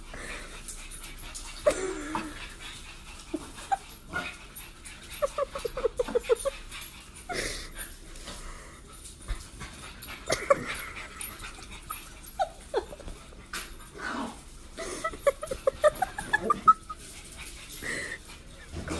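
A fawn pug making repeated short vocal sounds, some in quick runs of several calls in a row, with light clicks between.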